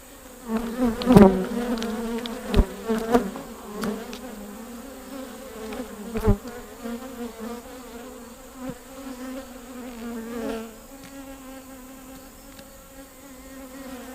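Honeybees buzzing around an opened hive: a steady hum with a second, higher tone above it, loudest in the first few seconds. A few sharp knocks cut through it, the loudest about a second in and another about six seconds in.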